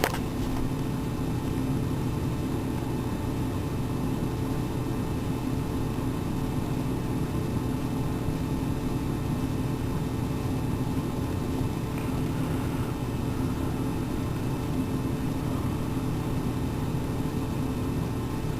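Steady mechanical hum of a running machine, such as a fan or household appliance, with several constant low tones and no change throughout.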